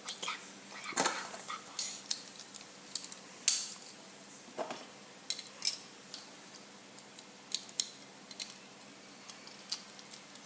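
Irregular light clicks and taps of Beyblade Dynamite Belial's plastic and metal parts being handled and fitted back together, as the top is switched into high mode.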